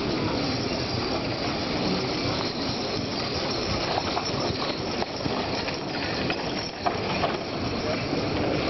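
A team of Shire horses drawing a wooden trade wagon past: a steady rumble and rattle of the wagon's wheels and harness chains, with a few sharp clinks.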